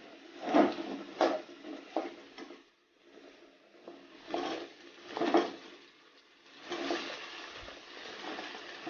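Spoon knocking and scraping against a kadai several times, then, from about two-thirds of the way in, a steady sizzle as shallots fry in hot oil with the masala.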